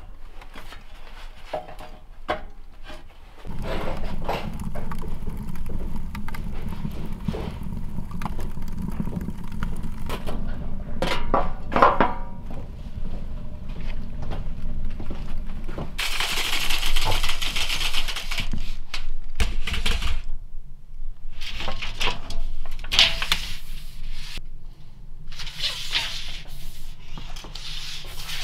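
Knocks and clanks of kindling and the iron fittings of a cast-iron pot-belly wood stove as it is loaded and lit, over a steady low rumble that stops abruptly about halfway through. In the second half, bursts of brushing and scraping from a broom sweeping the plywood floor.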